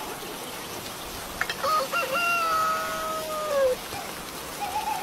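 A rooster crows once, over steady rain: a few short notes lead into one long held note that falls off at the end.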